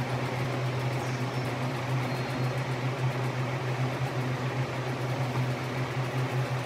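Steady low hum under an even hiss: room noise, with no distinct events.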